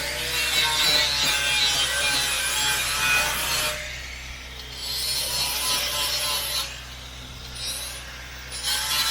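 Grinder grinding down welds on sheet steel, a steady rasping, with the grinder eased off the metal twice, at about four seconds and again around seven to eight and a half seconds.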